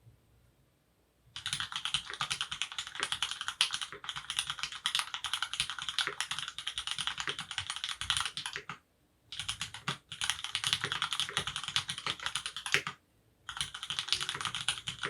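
Fast typing on a Monstargear XO K80 Alu keyboard, its lubed Cherry MX Black hyperglide linear switches mounted on an aluminium plate and damped with memory foam. A dense run of key presses starts about a second in and breaks off twice briefly.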